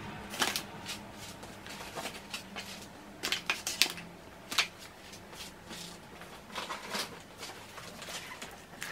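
Plastic-packaged groceries being handled and laid on a pile of shopping: crinkling plastic wrap with irregular light clicks and taps, busiest a little past the middle.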